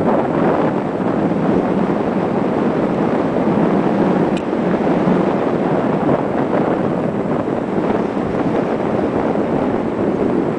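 Steady wind rushing over the camera microphone, loud and unbroken.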